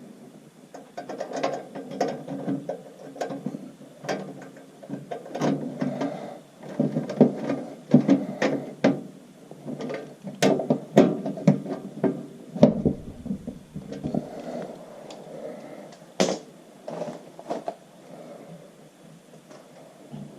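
Irregular clicking and clattering of hand tools and metal parts as a furnace flame sensor is refitted in its bracket, with runs of quick, ratchet-like clicks.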